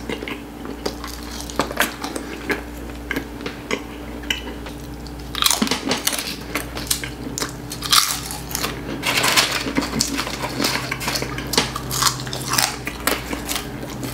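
Close-miked mouth sounds of eating fried bhatura bread by hand: biting and chewing with many small wet, crackly clicks, getting busier about five seconds in.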